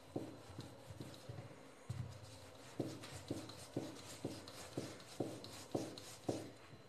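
A wooden rolling pin rolls out soft yeast dough on a floured rolling board (chakla), making faint rubbing strokes. The strokes turn regular, about two a second, from about three seconds in, with each back-and-forth pass of the pin.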